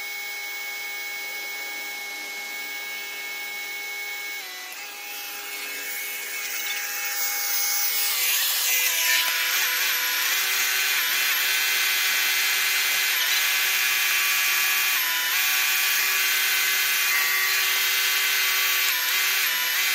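Electric pressure washer running with a steady motor whine. A few seconds in, the hiss of the foam lance spraying rises and then stays loud. The motor's pitch dips briefly several times.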